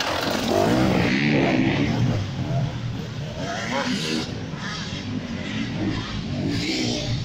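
Enduro motorcycle accelerating hard past at close range, engine revving up and down. It then rides off and the engine note gets quieter.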